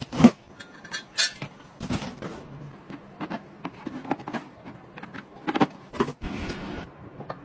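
Scattered sharp clicks, taps and scrapes from handling household items: a knife slitting the packing tape on a cardboard box, and a clear plastic egg storage drawer being handled. The loudest is a sharp knock just after the start.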